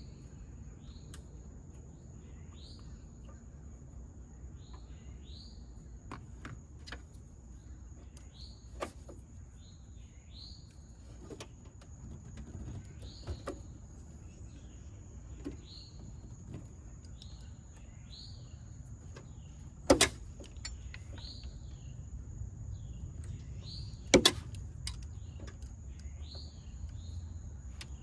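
A bird repeats a short rising chirp about every second and a half over a steady high insect trill. Sharp clicks of hand tools working battery-cable wire come through now and then, the loudest two about twenty and twenty-four seconds in.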